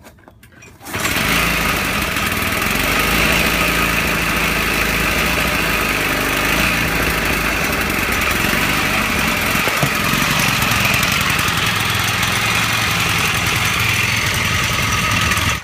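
Lawnmower engine converted to drive a boat's outboard lower unit comes in abruptly about a second in, then runs steadily and unloaded with the propeller turning in the air. It holds at its new minimum-throttle idle set by an added idle screw, without stalling.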